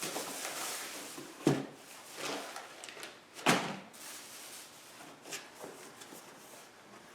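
Two sharp knocks about two seconds apart, among softer rustling and light clatter of something being handled.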